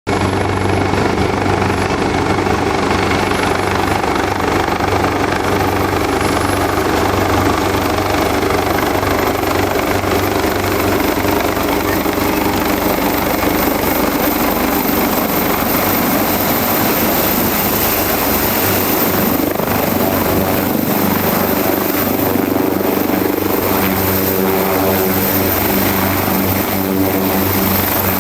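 Leonardo AW189 twin-turbine helicopter running steadily on the ground, with a low rotor hum and a thin high turbine whine.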